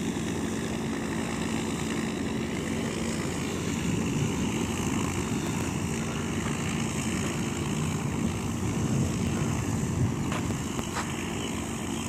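Propeller aircraft engine droning steadily, a little louder in the middle.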